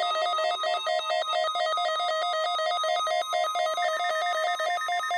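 Weather radio receiver's alert alarm: a rapid electronic beeping that alternates between a low and a high tone several times a second. Beneath it runs the steady single tone of the NOAA Weather Radio 1050 Hz warning alarm, sent during the weekly test.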